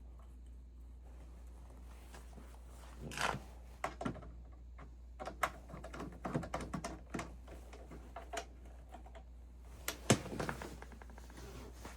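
Irregular clicks, taps and knocks of tools and metal parts being handled during work on an oil burner, beginning about three seconds in, with one sharp click near the end. A steady low hum runs underneath.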